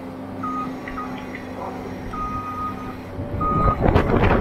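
Skid steer loader's engine running with its back-up alarm sounding in short and longer beeps, then loud knocking and clattering near the end.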